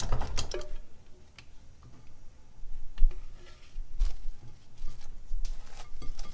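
Plastic cling film crinkling and crackling as it is stretched and pressed over a glass bowl of custard, with a couple of low bumps. At the start, a utensil clicks and scrapes against a metal pot.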